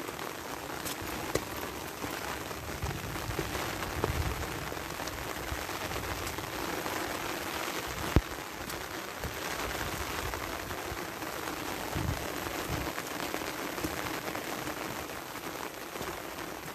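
Steady rain falling on wet, muddy soil, a continuous hiss, with a few sharp taps; the loudest comes about eight seconds in.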